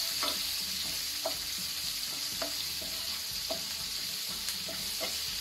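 Green chillies, curry leaves and crushed ginger and garlic sizzling in hot ghee in a non-stick frying pan, stirred with a wooden spatula. The spatula's scrapes across the pan come about once a second over the steady sizzle.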